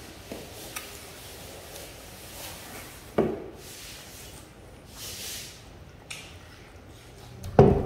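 A puppy and two baby monkeys eating juicy watermelon: small wet licking, chewing and squishing sounds with light clicks. There is a dull knock about three seconds in and a louder one near the end, as fruit or paws bump the plate and table.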